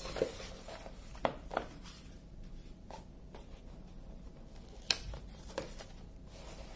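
Rustling of a stiff, curled diamond painting canvas and its paper cover being handled and flattened, with a few short sharp crinkles.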